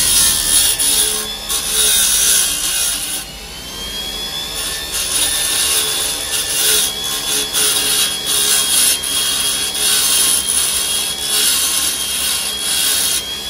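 Parkside double bench grinder running with a steady high whine while a nail is held against the grinding wheel, giving a harsh rasping grind that comes and goes in repeated passes. The grinding pauses briefly about three seconds in.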